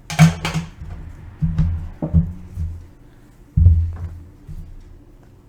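Background music with a low, pulsing bass, overlaid by a few sharp clicks and knocks from handling card packaging.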